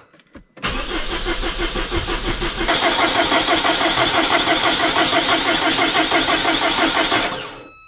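Saab 9-3 Aero engine cranking on its starter motor, with a steady pulsing rhythm, for about six and a half seconds without catching before cutting off abruptly: a crank-no-start after a spark plug change.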